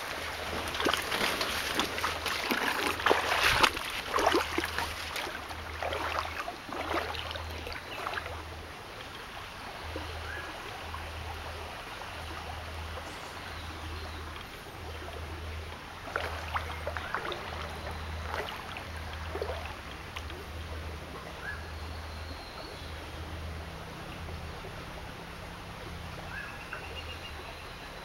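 Shallow forest stream flowing and trickling, with loud irregular splashing and rustling in the first several seconds and again briefly midway as someone moves through the water and leaves. A few short bird chirps come in near the end.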